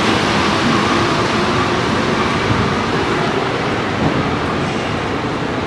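Rubber-tyred NS-74 metro train running away along the platform, a steady rolling rumble and hiss that slowly fades as it moves off.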